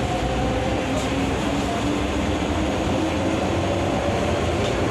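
MTR M-Train electric multiple unit running along the line: a steady rumble of wheels and running gear, with a faint motor hum.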